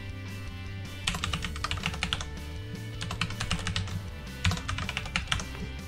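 Computer keyboard typing a password: rapid keystrokes in three quick runs, over steady background music.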